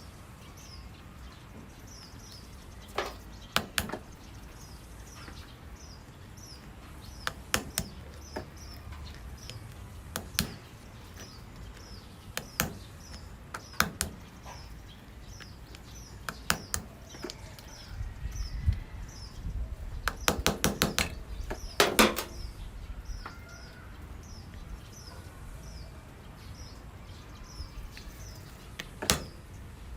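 Sharp clicks and knocks, singly and in quick clusters every few seconds, densest about two-thirds of the way through, like parts and tools being handled during a repair. Behind them a small bird chirps steadily about twice a second.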